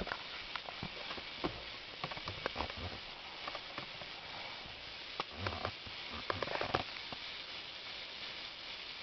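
Handling noise: scattered light clicks and taps over a steady hiss, with short rustling clusters about five and a half and six and a half seconds in.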